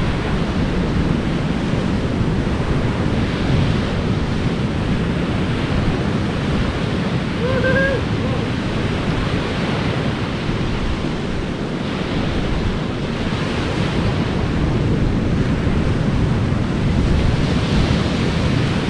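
Surf washing onto a beach, a steady rush of breaking waves that swells every few seconds, with wind buffeting the microphone.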